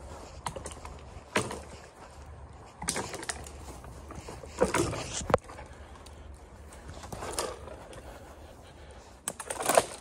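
Footsteps crunching irregularly through thin snow, pine needles and twigs on the forest floor, with a sharp crack like a twig snapping about five seconds in.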